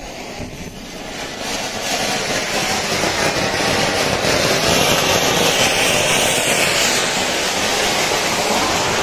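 Diwali anaar (fountain firework) burning and propelling a toy train, a loud steady hiss that builds up over the first two seconds.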